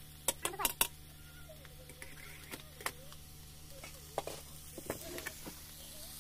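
Metal spatula clinking and scraping against a metal kadai while food is stirred: a quick cluster of sharp clinks just after the start, then scattered single knocks as the pan is handled and set down.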